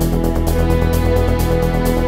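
Background music with sustained held tones over a steady, regular beat.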